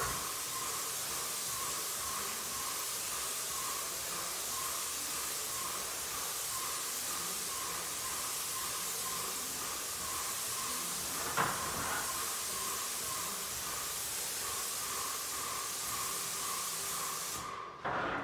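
Paint spray gun hissing steadily as it sprays paint onto a wooden wall, with a faint pulsing tone underneath. The spray cuts off near the end, followed by a few knocks.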